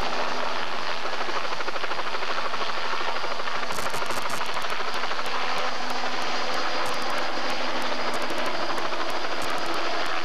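Bell 206 JetRanger helicopter hovering and descending close by: a steady, loud turbine and main-rotor noise with a fast, even rotor beat.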